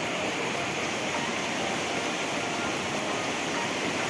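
Rushing mountain river running over rocks and rapids, a steady, even rush of water.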